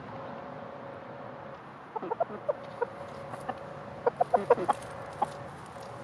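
Bantam chickens clucking: a few short clucks about two seconds in, then a quick run of clucks around four seconds in and one more near five seconds.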